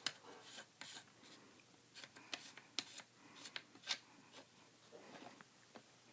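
Light, irregular clicks and short scrapes of a Remington 870 pump-action shotgun's metal parts being handled during reassembly, a dozen or so small knocks over several seconds that die away near the end.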